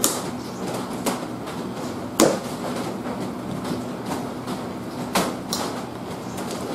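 A few sharp clicks and crackles as the plastic-wrapped box of butter cookies is worked open with a small knife, the sharpest about two seconds in, over a steady background hum.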